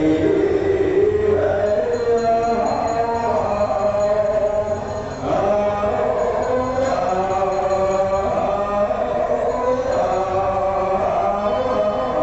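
Buddhist chanting: several voices reciting together on long held notes, with a short pause for breath about five seconds in.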